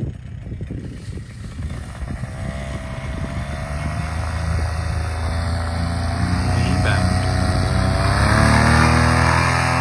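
Paramotor engine running up for a takeoff run, getting steadily louder, then rising in pitch near the end as it goes to full power.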